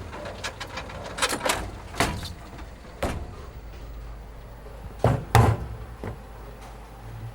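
A series of sharp knocks, about six, over a steady low rumble. The loudest are a pair about five seconds in.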